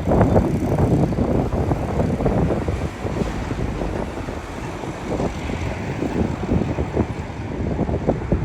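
Gusty wind buffeting the microphone, a choppy low noise that flares up unevenly throughout.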